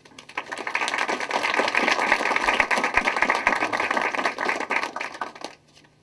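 Audience applauding, a steady patter of many hands that dies away about five and a half seconds in.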